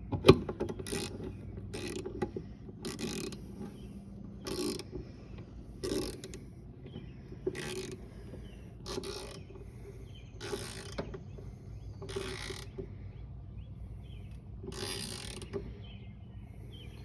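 Hand ratchet clicking in short back-and-forth strokes, about one every second, as the last filler-neck bolt on a fuel tank is run down tight.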